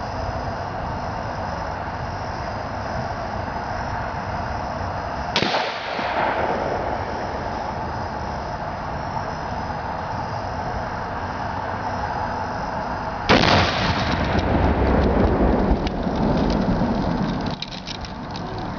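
A sharp shot about five seconds in, then a louder blast about thirteen seconds in as a 2.5-pound Star Target exploding rifle target goes off, followed by a few seconds of rumbling and crackling, over a steady background hiss.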